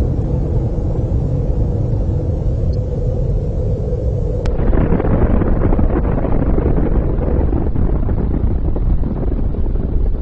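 Nuclear explosion rumble: a loud, continuous deep rumble that grows fuller and harsher about four and a half seconds in.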